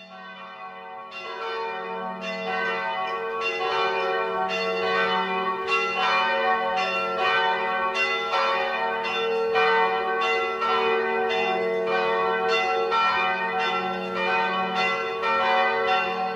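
Bells ringing in a steady run of strikes, about one or two a second, their tones overlapping over a steady low hum. The sound fades in at the start.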